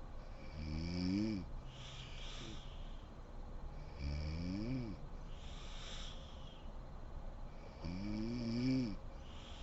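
A sleeping woman snoring: three snores about three and a half seconds apart, each about a second long with its pitch rising, and a breathy hiss of air between them.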